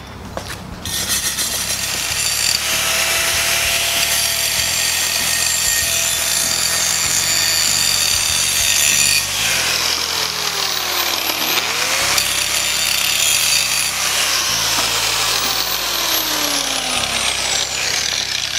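Angle grinder grinding down the high spots of a stick-welded 6010 root pass on steel pipe. It is a steady grinding noise that starts about a second in, and its pitch sags and climbs back a couple of times as the disc is pressed into the weld.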